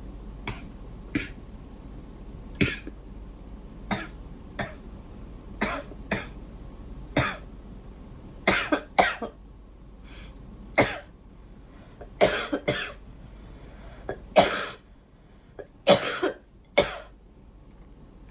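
A girl coughing over and over: about twenty short coughs at irregular intervals, some single and some in quick runs of two or three.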